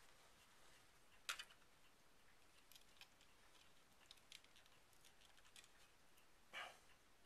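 Faint plastic clicks and taps as a model train's plastic body shell and chassis are handled and pressed back together: one sharper click about a second in, a few light ticks, and a short scrape near the end.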